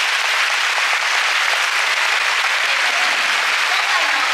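A large audience applauding steadily, with the dancers on stage clapping along.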